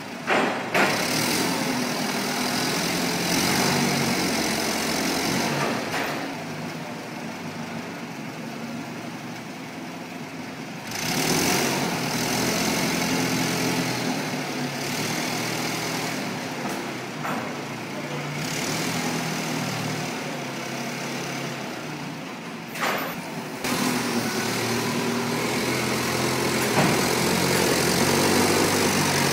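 A vehicle engine running steadily, growing louder and quieter, with its level jumping abruptly a few times.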